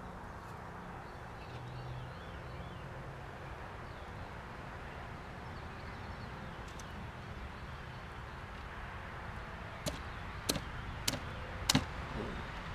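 Steady low outdoor background noise, then near the end four sharp clicks about half a second apart as a fillet knife cuts and snaps through the hard dorsal fin of a catfish on a plastic table.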